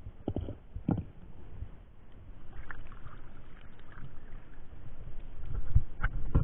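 Muffled knocks and water sloshing heard through a camera held underwater in a shallow, stony river as a person wades beside it. A few sharp knocks come just after the start and about a second in, with a louder cluster of knocks and splashing near the end.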